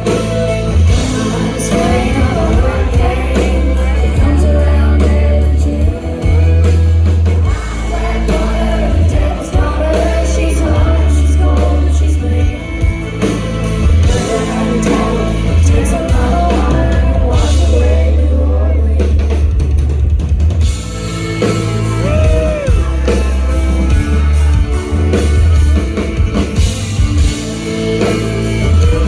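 Live country band playing a song: sung vocals over drums and a heavy low bass beat.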